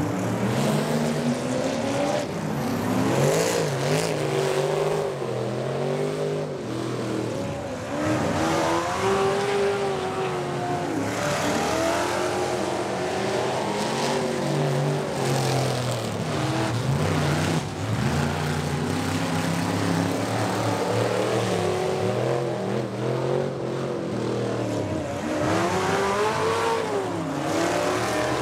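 Several dirt-track racing pickup trucks' engines running hard around the oval. Their pitch rises and falls over and over as the trucks accelerate and lift through the turns, several engines overlapping.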